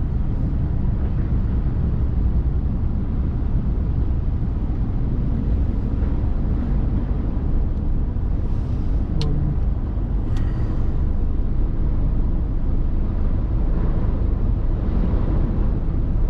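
Steady low rumble of a car's engine and tyres on the road, heard from inside the moving car, with two short clicks around the middle.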